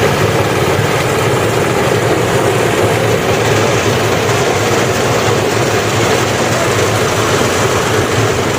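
Engine of a rice harvesting machine running steadily under load, a loud continuous drone with no let-up.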